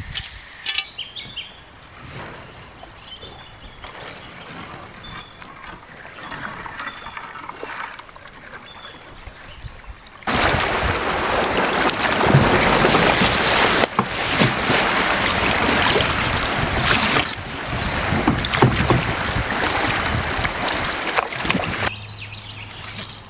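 Kayak paddle strokes dipping and splashing through river water, loud and continuous from a sudden start about ten seconds in. Before that is a quieter stretch in which water poured over a smouldering campfire splashes and hisses on the coals.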